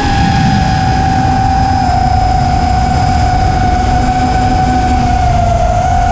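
FPV racing quadcopter's brushless motors and propellers on 5S power whining at a steady pitch, dipping briefly near the end, with low wind rumble on the onboard camera's microphone.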